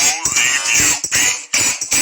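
Music with a high-pitched, processed singing voice in short choppy phrases, cut off briefly twice.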